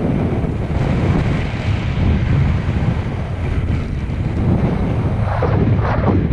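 Wind buffeting a helmet camera's microphone: a loud, steady low rumble that turns briefly harsher about five seconds in.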